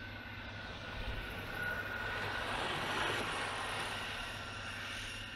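Electric skateboard rolling past on asphalt: the wheel and hub-motor noise swells, peaks about three seconds in, then fades, over a steady hum.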